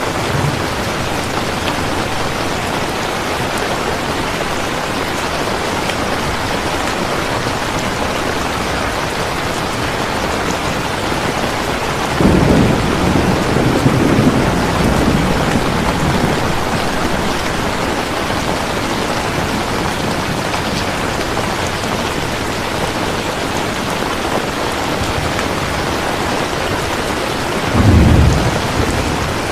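Steady heavy rain with thunder rumbling twice: a longer roll starting about twelve seconds in that lasts a few seconds, and a shorter one near the end.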